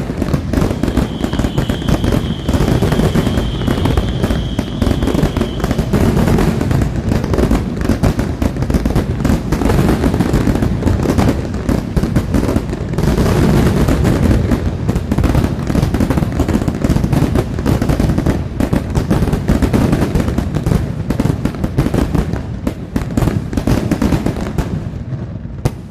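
Aerial fireworks going off in a dense, continuous barrage of rapid bangs and crackling pops with deep rumbling booms. A high whistle rises over it for several seconds near the start. The barrage fades out at the very end.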